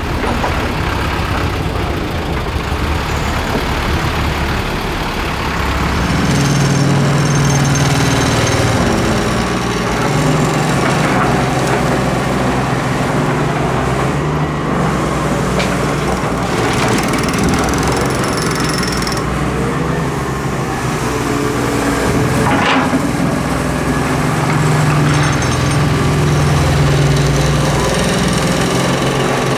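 Diesel engine of a Doosan Solar 130W-V wheeled excavator running under hydraulic load, revving up about six seconds in and rising and falling as the bucket digs sand and swings. A few sharp metal clanks.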